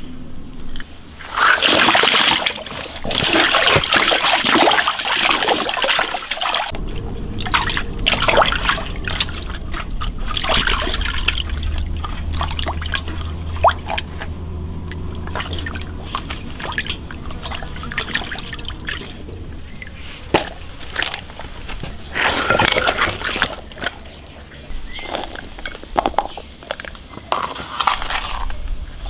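Water splashing and sloshing in a metal basin as whole crucian carp are washed and rubbed clean by hand, in irregular swishes and drips.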